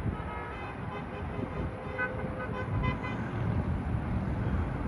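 Distant vehicle horns tooting several times over the steady rumble of highway traffic, with the toots clustered about half a second in and between two and three seconds in.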